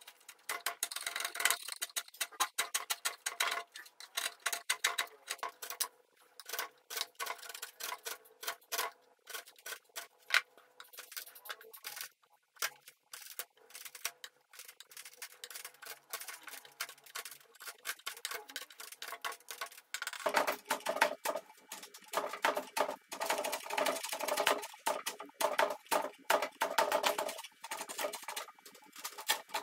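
Hand chisel paring oak by hand: a quick run of short scraping cuts that tick like a clock. About two-thirds of the way through, the cuts get heavier and fuller.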